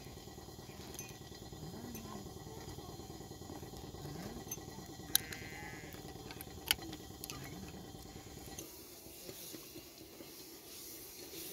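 A metal spoon clinking twice against a small glass cup while salt is spooned into it, over a steady outdoor background with a faint low sound recurring about every two seconds.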